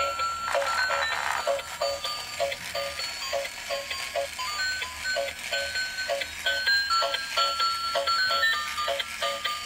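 Transparent gear toy car's built-in speaker playing an electronic tune: a melody of beeped notes stepping up and down over a steady beat of about three pulses a second.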